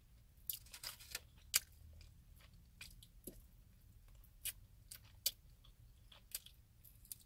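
Close-up eating sounds: chewing bacon-wrapped quail and sucking the meat off a small bone, with a dozen short wet smacks and clicks of the lips scattered through, over a faint steady low hum.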